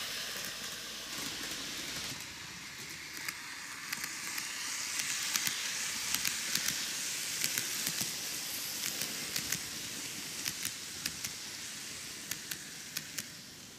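N-gauge model train (TOMIX Kintetsu 80000 series Hinotori, six cars) running on the track: a steady hiss of the running gear with many sharp, irregular clicks of the wheels over the track joints. It grows louder from about two seconds in as the train comes round and passes, and fades near the end.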